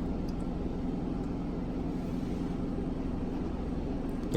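Steady low mechanical drone of running machinery, even throughout, with a couple of faint light ticks.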